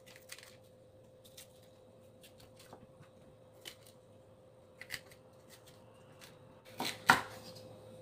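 Chef's knife cutting a red bell pepper on a wooden cutting board: scattered light taps of the blade against the board, with a louder pair of knocks about seven seconds in.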